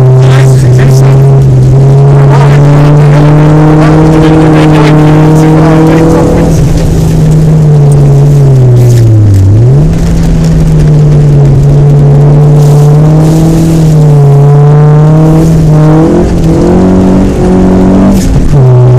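A 4WD Honda Civic's four-cylinder engine running at high revs while driven on a snowy ice track. The revs hold steady for long stretches, drop sharply about nine seconds in and climb straight back, and jump up and down several times near the end.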